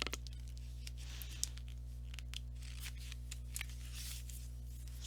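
Faint paper rustling and a few light clicks as the pages of a paper picture book are handled and turned, over a steady low hum.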